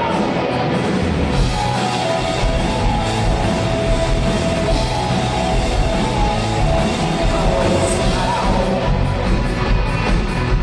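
Live rock band playing steadily and loudly: electric guitars and a drum kit.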